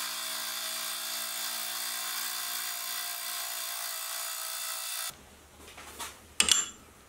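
Sieg X2.7L benchtop milling machine running a fly cutter fitted with a DCMT insert across a steel plate: steady motor whine and cutting noise that stops suddenly about five seconds in. A few sharp clicks follow near the end.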